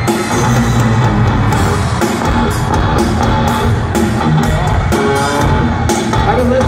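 Live rock band playing loud through an arena PA: distorted electric guitar and drum kit, recorded from among the audience.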